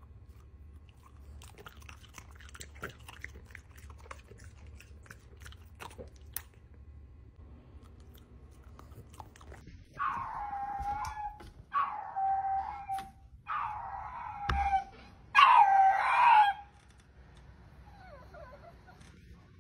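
A dog howling in four drawn-out calls of about a second each, each ending in a falling pitch, starting about halfway through; before them only faint ticking sounds.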